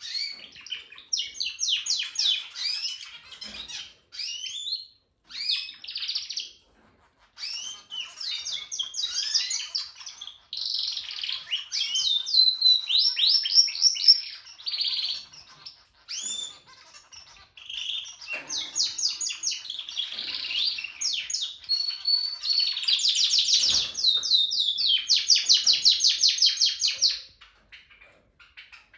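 Male Harz canary singing, practising his song: phrase after phrase of rapid trills and chirps with short pauses between, closing with a long fast trill that stops near the end.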